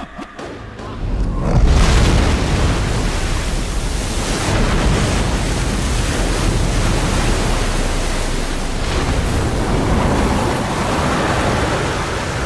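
A sudden loud rush of water and spray as an Airbus A320 airliner belly-lands on a river and skids across the surface. It begins about a second and a half in and holds steady.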